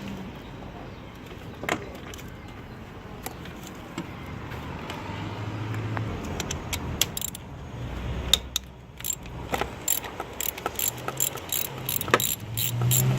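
Metal hand tools clinking and clicking against engine parts, with a run of quick clicks, about three a second, near the end.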